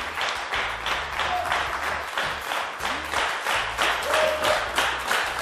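Studio guests and audience clapping together in an even rhythm, about three claps a second, over background music with a low bass.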